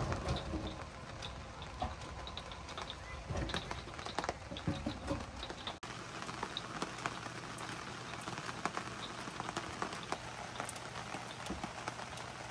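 Light rain pattering and dripping on surfaces, with many small scattered drops. A metal clunk from the barbecue grill's grate comes right at the start.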